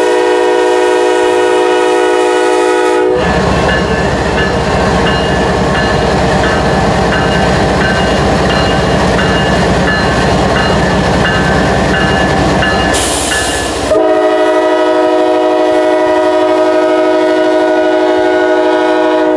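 Diesel freight locomotive's air horn sounding a long blast, then the rumble and wheel noise of the passing locomotives and cars, then a second long horn blast from about 14 seconds in. The train is two GE road locomotives, an ES44AC leading a C40-8W, pulling away under power.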